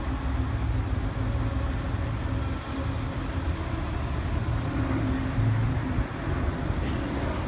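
Steady outdoor rumble with a rushing hiss, with no single event standing out.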